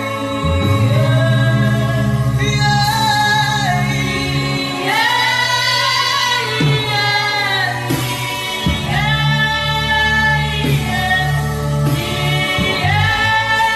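A voice humming a slow, wordless worship melody in long held notes, phrase after phrase, over a steady low sustained accompaniment.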